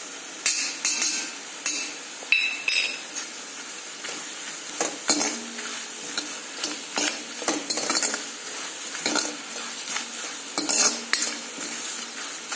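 Onion, coconut and spices sizzling in hot oil in a hammered metal kadhai, with turmeric and asafoetida just added for the masala tempering. A steel ladle stirs through it, scraping and knocking against the pan many times at an uneven pace.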